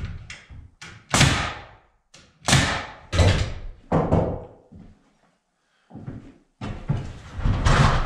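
Loud knocks and thuds from carpentry work on a wooden stud wall, several sharp blows with ringing tails about a second apart, then a brief gap and a denser run of knocks and rattles near the end.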